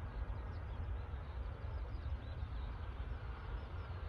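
Wind buffeting the microphone in a gusting low rumble, with birds chirping faintly and the distant noise of an Airbus A321 jet airliner on the runway underneath.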